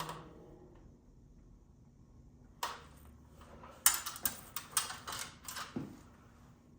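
Homestead Whisper Fan 1 ceiling fan's motor humming faintly, with a run of sharp clicks and knocks: one about two and a half seconds in, then about seven in quick succession between four and six seconds in.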